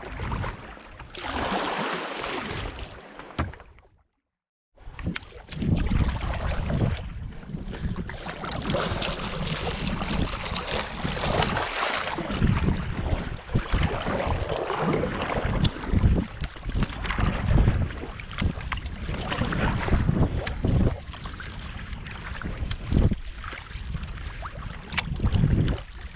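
Wind buffeting a GoPro's microphone, with water splashing and lapping as a sea kayak is paddled across open sea. The sound drops out to silence for a moment about four seconds in.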